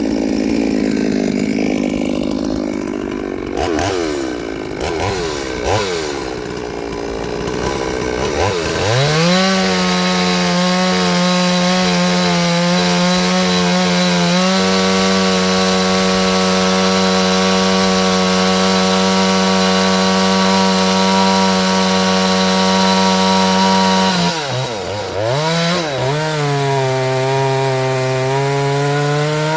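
Two-stroke chainsaw, fitted with a test chain ground at an unusual sharpening angle, being blipped up and down, then about nine seconds in opened up and held at high, steady revs for some fifteen seconds. Near the end the revs dip and recover at a slightly lower pitch.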